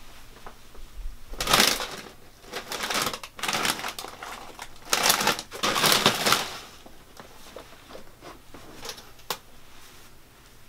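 Someone rummaging through a pantry shelf: snack packaging rustling and items clattering in several bursts, loudest around two seconds in and again around five to six seconds in, with a couple of sharp clicks near the end.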